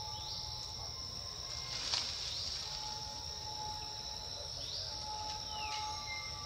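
Outdoor insect chorus: a steady high-pitched drone, with short rising chirps recurring every couple of seconds and one falling chirp near the end. A single sharp tick comes about two seconds in.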